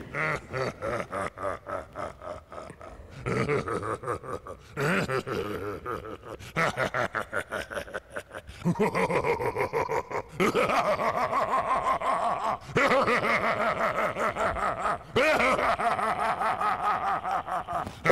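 Spirit Halloween animatronic prop running its demo: its recorded voice track gives laugh-like phrases, several in the second half, over a rapid clicking that runs throughout.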